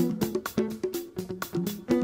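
A recorded music track played back in a DJ mix: a quick, even beat of sharp hits, about five a second, under a melody of changing pitched notes.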